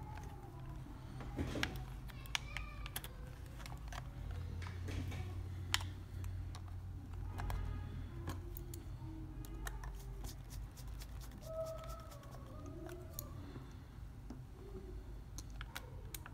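Sharp plastic clicks and handling of a PlayStation 4 DualShock 4 controller as its shell halves are pressed together and the body is handled, with a few faint short squeaky tones over a low steady hum.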